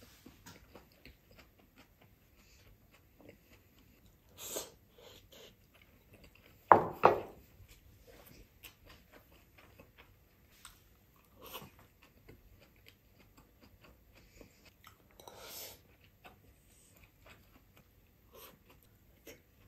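A person chewing and eating with chopsticks: soft, close chewing and mouth clicks, with a few louder short sounds, the loudest about seven seconds in.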